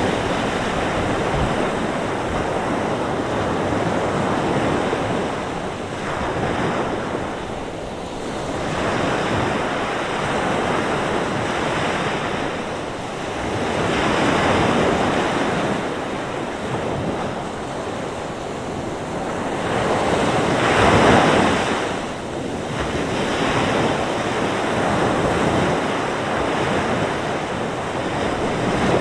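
Mediterranean surf breaking and washing up the beach in a strong wind, swelling and easing every few seconds, with one wave loudest about two-thirds of the way through. Wind gusts over the microphone, adding an uneven low rumble.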